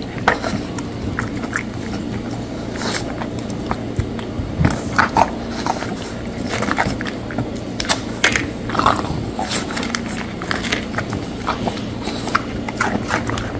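A French bulldog chewing crunchy crackers, with irregular crunches and mouth sounds as it bites and chews.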